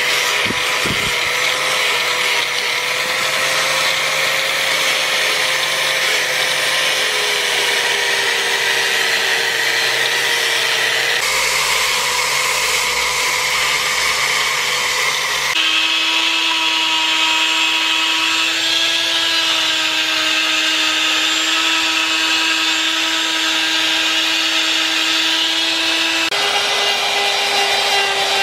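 Electric power tools running steadily against wood while a carving is shaped: an angle grinder with a foam-backed sanding disc sanding the carved wood, then a small rotary grinder with a carving burr. The motor pitch and character change abruptly about 11, 16 and 26 seconds in.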